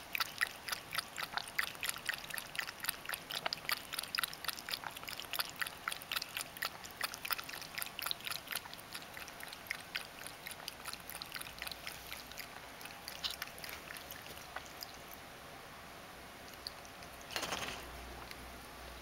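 Ragdoll cat lapping water from a bowl: a quick run of small wet clicks at about four a second that thins out and stops a little past halfway. A short burst of noise near the end.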